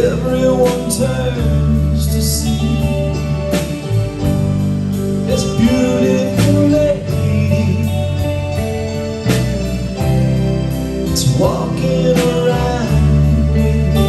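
Live band playing a slow rock ballad: electric guitar lead over keyboard and bass, with a slow steady beat.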